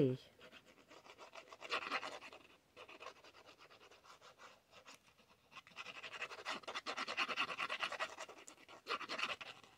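Fine metal-tipped liquid glue bottle squeezed and drawn across cardstock, its tip scratching the paper with a rapid crackly sound, once briefly about two seconds in and again for several seconds from about six seconds in.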